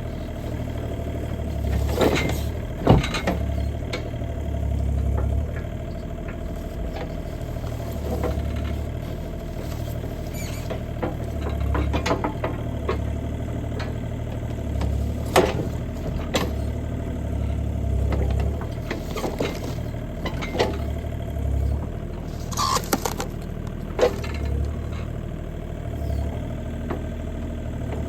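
Bobcat E35 mini excavator's diesel engine running, its drone swelling and easing every few seconds as the hydraulics take load, under a steady whine. Scattered sharp cracks and knocks come from the bucket and hydraulic thumb crushing a cardboard box.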